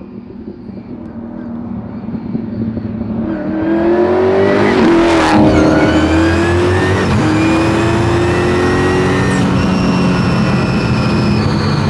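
The twin-turbocharged, supercharged Coyote V8 of the Vicious Mustang 2.0 accelerating hard. The engine note climbs and grows loud over the first few seconds. The pitch dips briefly about five seconds in, then keeps pulling steadily.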